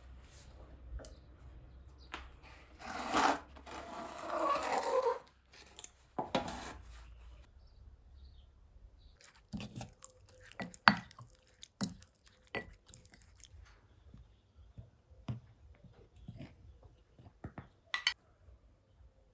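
A metal oven door being opened, with a long scraping rush about three seconds in. Then a wooden spoon stirring chopped dill in a glass bowl, with scattered sharp clicks as it knocks against the glass.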